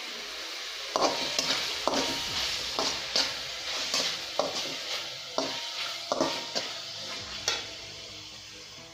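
Slotted spatula stirring and scraping a masala frying in a metal kadai: irregular sharp scrapes and taps of the spatula against the pan, about one or two a second, over a steady sizzle. The stirring starts about a second in and stops near the end, leaving the sizzle.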